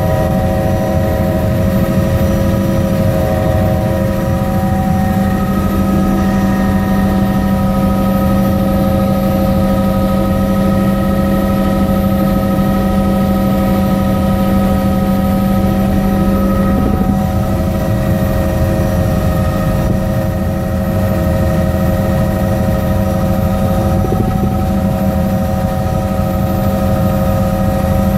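Helicopter in level flight heard from inside the cabin: a loud, steady drone of engine and rotor with several steady whining tones over it.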